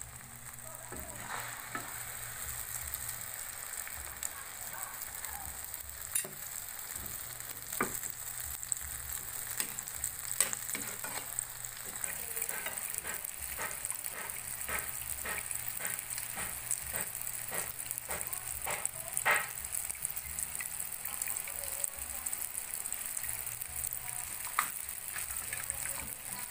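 Egg-battered eggplant omelettes (tortang talong) frying in oil in a nonstick pan: a steady sizzle with frequent sharp pops and crackles, which come thickest through the middle of the stretch.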